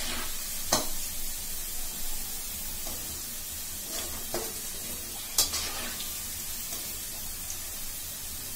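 Chicken balls deep-frying in hot oil in a metal kadai, a steady sizzle, while a metal spoon stirs and lifts them out. The spoon clinks sharply against the pan twice, about a second in and about five seconds in, with a few lighter knocks between.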